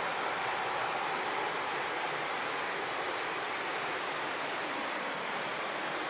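Steady rush of falling water, an even hiss with no breaks.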